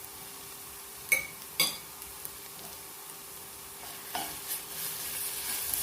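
Onion with ginger and garlic paste frying in ghee in a pot, sizzling as a utensil stirs it. Two sharp knocks on the pot come a little after a second in, and the sizzling and stirring grow louder near the end.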